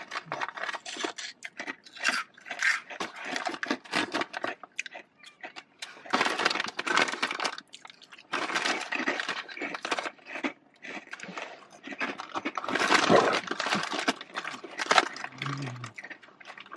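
Close-up crunching of crisps being chewed, in bunches of rapid crackles with short pauses between.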